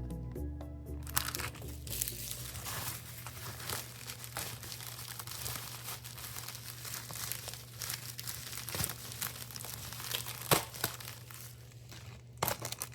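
Packaging crinkling and crackling as it is handled and opened, in a dense, irregular run of rustles and sharp little crackles.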